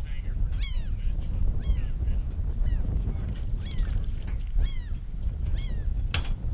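A gull calling over and over, a falling cry about once a second, over a steady low rumble. A sharp click near the end.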